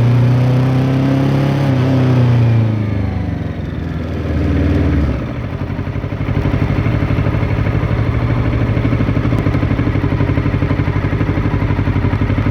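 Kawasaki Ninja 650 parallel-twin engine through an Arrow X-Kone exhaust with its dB killer fitted, heard from under the seat cowl. The engine note holds for a couple of seconds, then falls as the bike slows, and about five seconds in it settles to a steady, pulsing idle.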